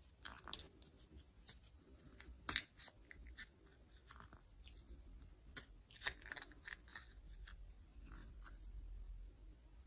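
Plastic packaging and toy doctor-set pieces being handled during unboxing: irregular crinkling and sharp plastic clicks, the loudest snaps about half a second and two and a half seconds in, with a busier stretch around six seconds.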